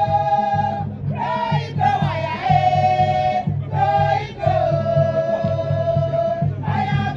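Music with singing voices holding long notes over a steady low beat.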